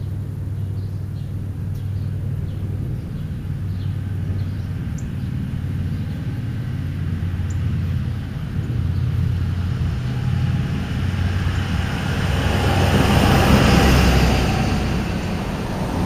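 A passing car: its tyre and engine noise swells to its loudest about fourteen seconds in and then fades, over a steady low hum. A few faint bird chirps in the first seconds.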